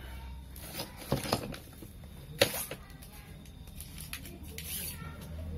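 Hands handling a small fabric-covered plastic Bluetooth speaker on a table: a few light knocks and clicks, the sharpest about two and a half seconds in, and a brief rustle near the end, over a faint steady low hum.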